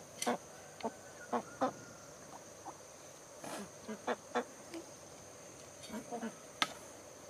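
Short, irregular calls of domestic fowl, about a dozen scattered through, over a faint steady high-pitched whine.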